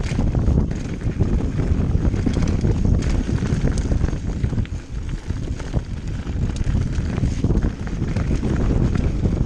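Loud wind rumble on the microphone as a mountain bike rides fast along a trail. Scattered clicks and knocks come from the bike rattling over bumps.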